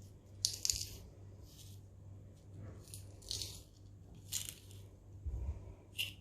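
Knife cutting through a raw potato threaded on a skewer: about five short, crisp slicing strokes at irregular intervals, over a low steady hum.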